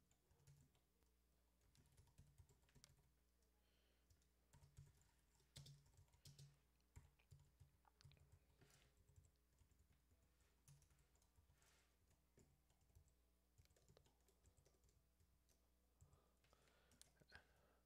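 Faint computer keyboard typing: scattered, irregular keystrokes with pauses between short runs.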